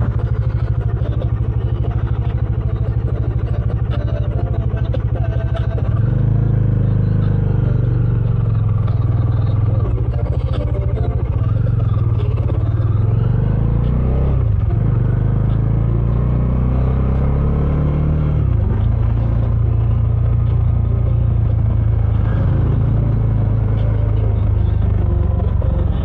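Bajaj Dominar 400's 373 cc single-cylinder engine running through its stock dual exhaust while riding, heard from the bike. The engine note gets louder about six seconds in and rises and falls several times with throttle and gear changes.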